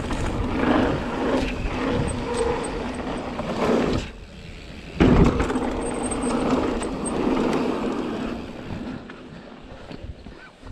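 Mountain bike riding down a dirt singletrack: knobby tyres rolling and the bike rattling over the ground, with a sudden loud jolt about five seconds in.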